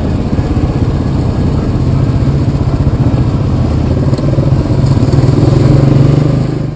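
Yamaha Kodiak 700 ATV's single-cylinder engine running steadily under way, growing a little louder near the end.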